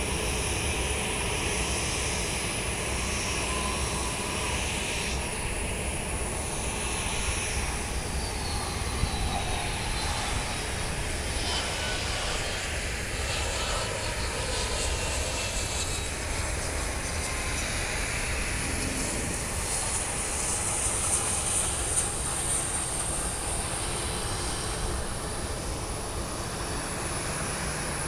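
Aircraft engine noise: a steady rumble, with a faint whine that falls in pitch for several seconds about ten seconds in.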